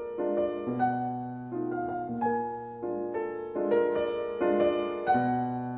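Background piano music: a slow melody of single notes, each struck and fading, over sustained low bass notes.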